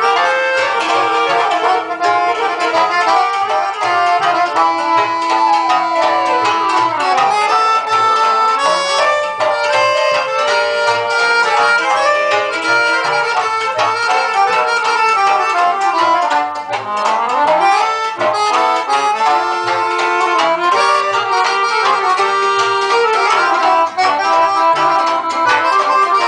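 Small folk band playing a lively tune: accordion leading with fast melodic runs, backed by a hammered concert cimbalom and a double bass. Twice the melody sweeps rapidly down and back up.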